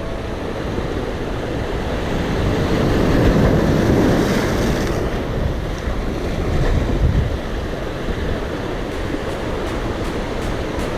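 Sea surf washing on a rocky shore, with wind buffeting the microphone; the wash swells louder a few seconds in, and faint regular ticks come in near the end.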